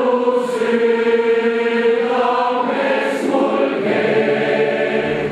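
A massed choir of many voices singing slow, long held notes.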